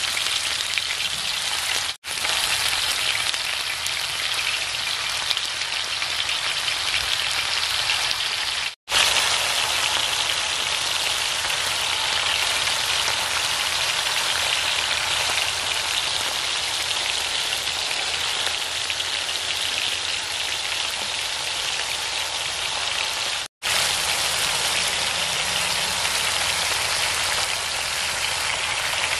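Minced-beef tikka patties frying in shallow oil on a large flat griddle (taba), giving a steady, dense sizzle. The sizzle breaks off abruptly for an instant three times: about 2, 9 and 23 seconds in.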